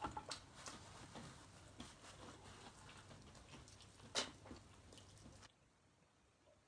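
Someone eating fried chicken close to the microphone: faint crunching and small clicks, with one sharper crunch about four seconds in. The sound drops out suddenly to near silence about five and a half seconds in.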